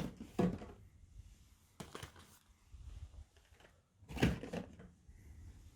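Cardboard boxes of cartridges being set and slid into a steel ammo safe: a few dull knocks and scrapes, the loudest about four seconds in.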